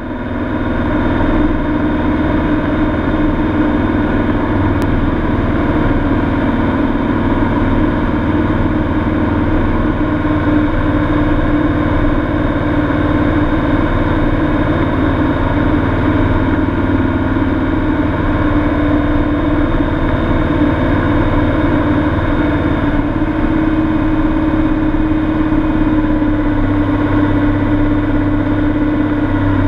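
Steady drone of a Cessna 182's piston engine and propeller, heard from inside the cabin during the descent to land. Its pitch shifts slightly a little over twenty seconds in.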